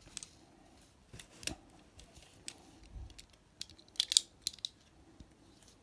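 Scattered clicks and light metallic knocks of folding multitools being handled and set down together, with a quick run of sharper clicks about four seconds in.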